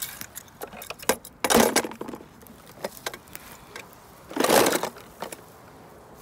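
Hands handling small die-cast toy cars around a plastic tub: light clicks and clinks, with two louder rustling, scraping bursts about a second and a half and four and a half seconds in.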